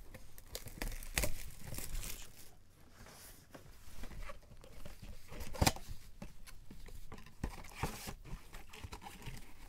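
Plastic shrink wrap being torn off a sealed trading-card box and the cardboard box opened: irregular crinkling, tearing and rustling, with a sharp click a little past halfway.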